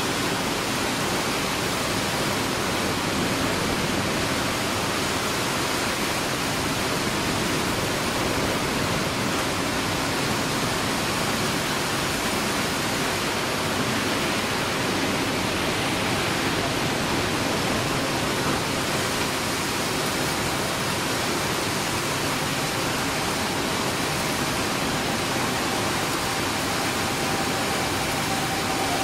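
Steady, even hiss of heavy rain. Near the end a faint whine from the Boeing 787's jet engines comes in over it.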